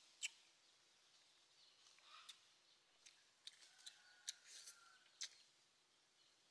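Quiet, close eating sounds of a person picking cooked frog meat off the bone by hand: lip smacks, sucking and about eight small, sharp clicks scattered through.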